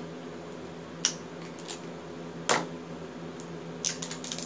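Sharp clicks and crinkles of a hot sauce bottle's cap and plastic seal being worked open by hand: one click about a second in, another about two and a half seconds in, and a quick run of small clicks near the end, over a steady low room hum.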